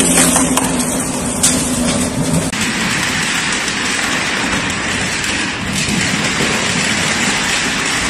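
Industrial crushing machine running: a steady hum with crackling of material breaking, which changes abruptly about two and a half seconds in to an even rushing noise.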